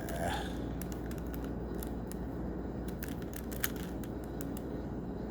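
Plastic layers of a Rubik's Cube clicking as they are turned by hand, an irregular run of short clicks.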